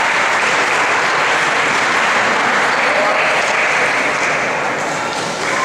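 Steady, loud din of a large sports hall: an even wash of noise with faint voices mixed in.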